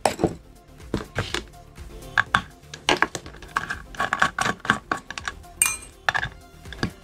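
Metal hard-drive parts and tools being handled: a string of sharp clinks and taps of metal on metal, some with a short ringing tone.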